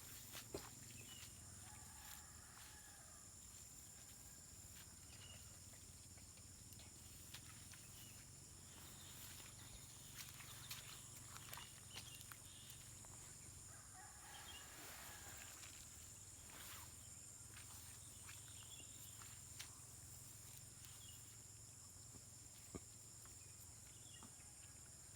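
Near-silent outdoor ambience: a steady high-pitched whine and a low hum, with scattered faint clicks and faint distant animal calls twice, a few seconds in and about midway.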